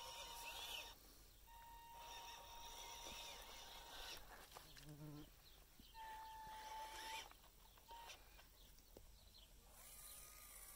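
Faint outdoor ambience: birds chirping, with a thin steady high tone that breaks off and returns several times.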